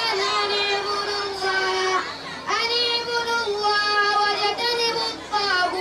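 A boy chanting melodically into a handheld microphone, holding long, slightly wavering notes. The voice breaks off briefly about two seconds in, then slides up into the next phrase.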